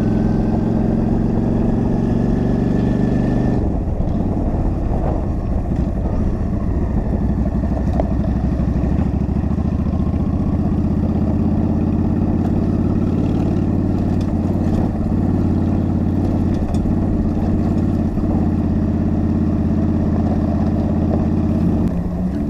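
A motor vehicle's engine running steadily, with a faint rising whine that breaks off about four seconds in.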